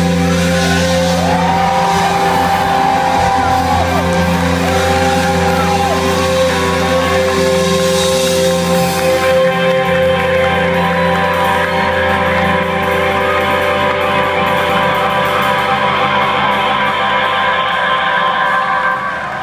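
Rock band with electric guitar playing a song's closing passage, long held chords and notes ringing, with a brief dip in level at the very end.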